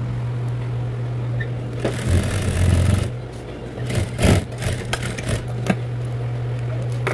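Industrial sewing machine humming steadily, with a short run of about a second some two seconds in as the seam is finished. Then a few clicks and rustles as the fabric is pulled out from under the presser foot.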